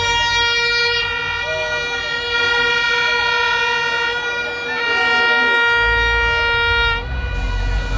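A loud, steady horn tone, the air-horn sound used at dancehall shows, held unbroken for about seven seconds before cutting off. Deep bass comes in just before it stops.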